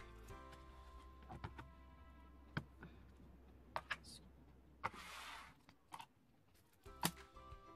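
Plastic lid of a takeaway soup bowl being pried off and the bowl set down on a wooden table: scattered light plastic clicks and taps, with a brief crinkle about five seconds in and a sharper tap near the end.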